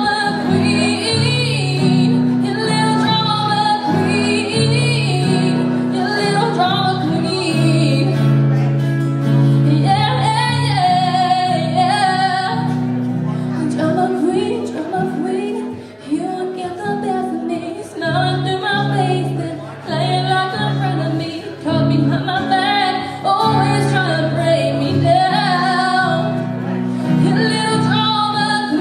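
Music: a woman singing a pop song over instrumental backing, her voice gliding over steady held bass notes.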